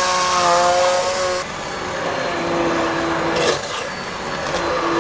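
Electric hand blender whirring as it purées pumpkin soup in a steel pot, its motor pitch dropping and rising as it works through the soup. A short clatter about three and a half seconds in.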